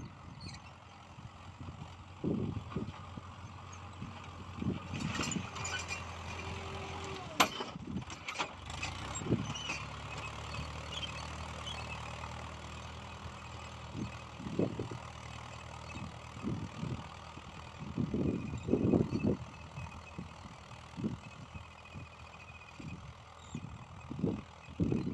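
Mahindra Yuvo tractor's diesel engine running steadily while pulling a disc plough through soil, louder through the middle as it passes close, its pitch shifting slightly about nine seconds in. Irregular gusts of wind rumble on the microphone throughout, with one sharp click about seven seconds in.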